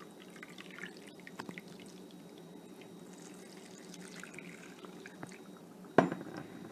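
Hot water poured from a cup into a bowl of powdered lentils, a faint trickling and dripping, then a sharp knock near the end.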